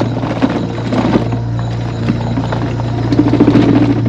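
Mobility scooter driving over a rutted dirt track, with a steady hum and a dense, irregular rattling and clattering as it bounces over tractor tracks.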